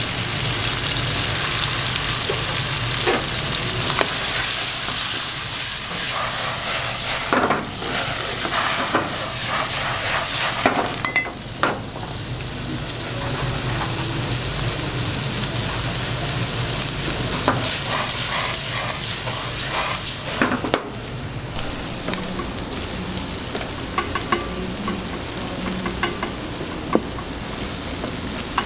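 Diced vegetables sizzling in hot oil in a frying pan, a steady hiss, with a utensil now and then clicking and scraping against the pan.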